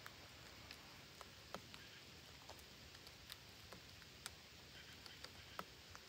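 Near silence: a faint steady hiss broken by about a dozen small, sharp clicks at irregular intervals.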